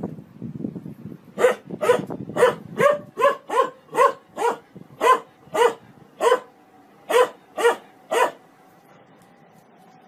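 Dog barking at a running washing machine: about fourteen short, sharp barks at roughly two a second, which stop about eight seconds in. A faint steady hum remains after the barking.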